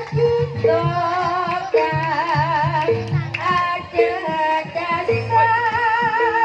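Live Javanese jaranan music: a woman singing with wide vibrato over a band with a repeated low drum beat.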